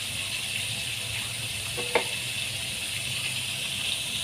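Flour-coated chicken pieces deep-frying in hot oil in a wok: a steady sizzling hiss, with one short tap about halfway through.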